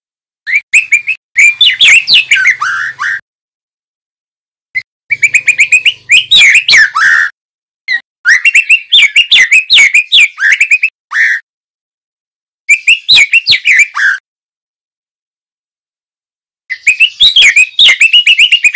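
Young male white-rumped shama singing: five phrases of rapid, sliding whistled notes, each lasting one to three seconds, separated by short pauses.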